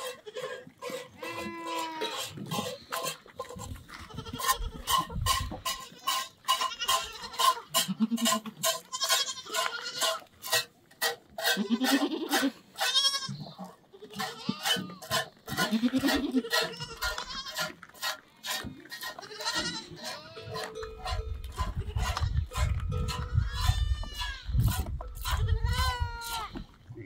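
Flock of goats and sheep bleating, many calls that arch up and down in pitch, over a rapid patter of sharp clicks or knocks. A low rumble comes in about three-quarters of the way through.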